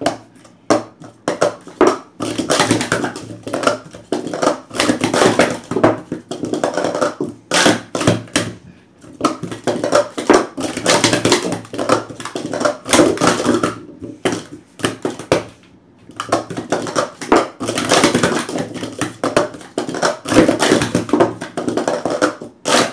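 Blue Pro Series 2 sport-stacking cups being stacked up and down at speed on a stacking mat: a fast, dense clatter of light plastic taps and clacks, with a few brief pauses.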